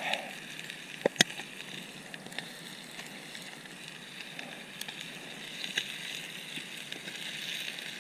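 Chicken wings sizzling in oil in a small pan over a campfire, a steady hiss with small crackles from the fire. A couple of sharp clicks about a second in.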